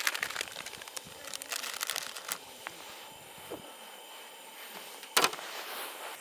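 Close rustling and scattered clicks of something being handled, with one sharp, louder click about five seconds in.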